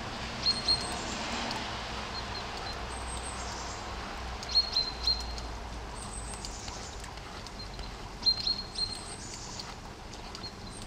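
Steady rain falling, with a bird chirping over it in short clusters of two or three quick notes, about three times.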